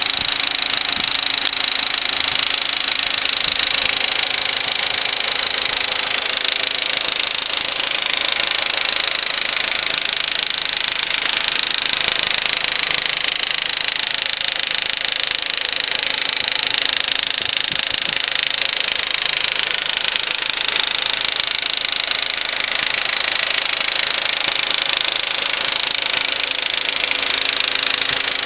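2004 Volkswagen Passat 1.8T turbocharged four-cylinder engine idling with a steady, rapid clicking tick over its running. Some have told the owner it is a lifter.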